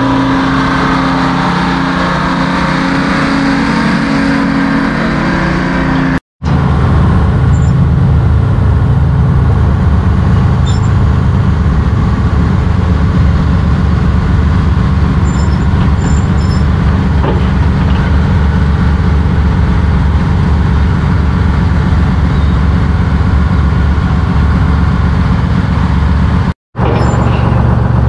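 Heavy engine of an old off-road dump truck running as it moves. After a short break in the sound about six seconds in, heavy machinery engines run steadily with a low, even beat, broken again briefly near the end.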